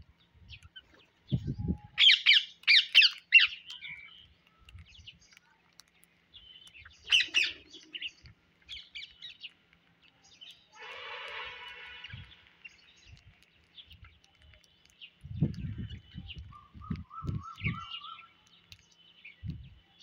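Rose-ringed parakeets giving shrill screeching calls: a run of about four loud screeches about two seconds in, another burst around seven seconds, and softer calls between. Several dull low thumps come near the end.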